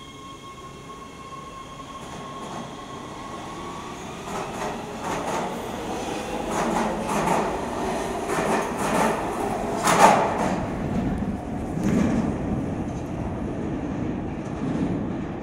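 Subway train pulling out of an underground station and speeding past. A steady high whine fades over the first few seconds, then the wheels click and clatter over the rail joints, louder and faster as the train passes. The loudest clack comes about ten seconds in, and the train then draws away into the tunnel.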